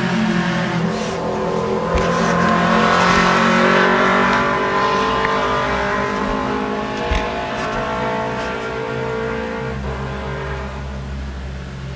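A loud motor vehicle engine running, its pitch sliding slowly down over several seconds and fading near the end.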